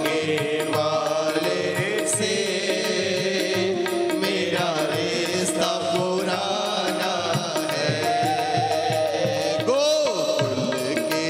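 Hindu devotional bhajan: a male voice sings the melody into a microphone over steady instrumental accompaniment, with the congregation clapping and singing along.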